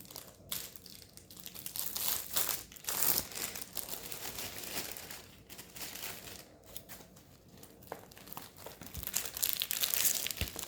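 Packaging crinkling and rustling in the hands as a diamond painting kit is handled and opened, in irregular bursts that are loudest near the end.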